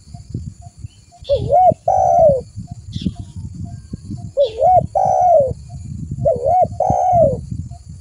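Spotted dove cooing: three phrases, each a quick wavering note followed by a longer drawn-out coo, over a low rumbling background noise.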